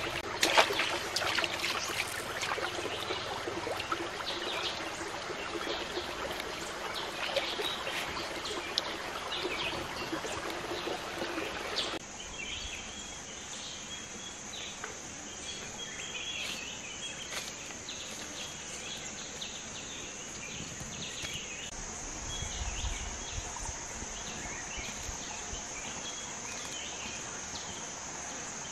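Hands splashing and scooping in a shallow rocky stream, with water trickling. After a cut about twelve seconds in, a steady high-pitched insect drone with scattered chirps.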